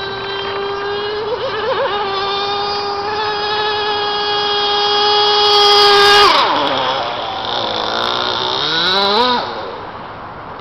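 CMB 45 engine in a radio-controlled racing boat running flat out with a high, steady whine. Just after six seconds, as the boat passes close, the pitch drops sharply. It swings back up briefly around nine seconds, then fades away.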